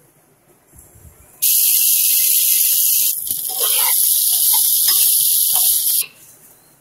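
Chopped okra sizzling in hot oil in a nonstick frying pan: a loud hiss that starts suddenly as the okra goes in, dips briefly, and cuts off suddenly near the end.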